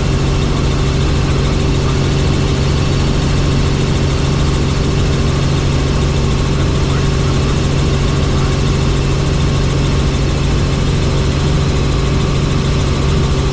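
Helicopter's engine and rotor running with a steady, unchanging drone: a constant low hum and a higher steady tone over a wash of noise.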